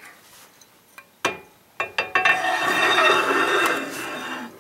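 Jeep Grand Cherokee rear axle shaft being slid into the axle housing: a sharp metal knock about a second in, a couple of clicks, then about two seconds of metallic scraping and rattling.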